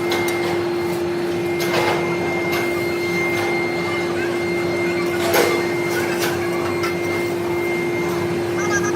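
Machine tool running with a steady hum on one constant tone. A few brief sharp clinks sound over it, the loudest about five seconds in.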